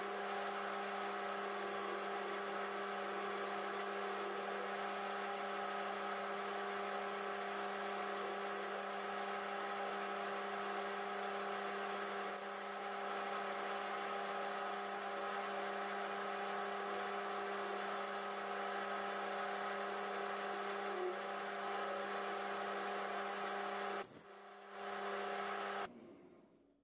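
Metal lathe running steadily, its motor and gearing giving a constant hum with several fixed tones. Near the end the hum dips, comes back briefly, then cuts off abruptly.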